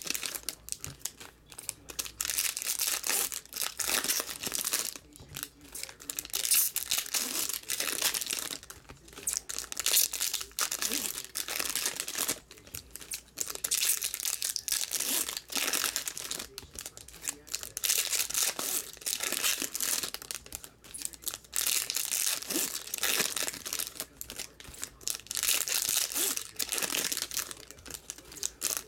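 Foil wrappers of 2019 Topps Finest baseball card packs being torn open and crinkled by hand, one pack after another, in repeated bursts of crackling.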